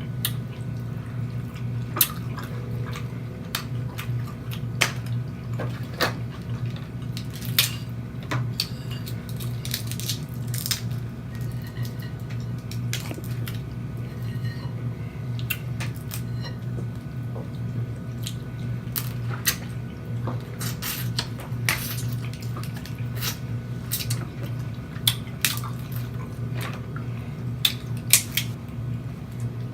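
Close-up eating of a seafood boil with snow crab legs: wet mouth smacking with many irregular sharp clicks and ticks, over a steady low hum.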